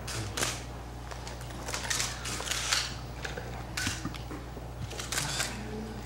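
Press photographers' camera shutters clicking at irregular intervals, several in quick succession, over a steady low hum in the recording.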